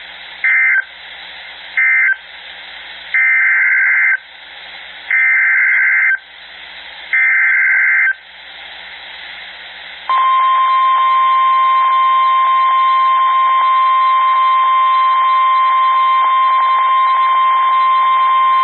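NOAA Weather Radio alert signalling over radio hiss. First come two short end-of-message data bursts, then three SAME header data bursts of about a second each, a warbling two-tone screech. About ten seconds in the steady 1050 Hz warning alarm tone starts and holds for about nine seconds, announcing a new severe thunderstorm warning.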